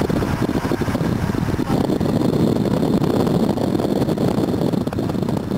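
A car driving along a road: steady road and engine noise heard from inside the moving car, with a rumbling flutter.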